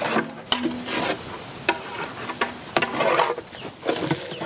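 A flat metal paddle stirring a large pot of freshly added chopped carrots, green beans and potatoes in hot masala: the vegetables scrape and shift with a sizzle, and the paddle knocks sharply against the metal pot about three times.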